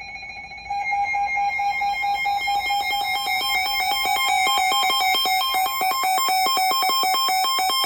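Electronic weather-radio alert tone sounding for a severe thunderstorm warning: a loud, buzzy beeping that jumps louder under a second in and then warbles rapidly between two pitches.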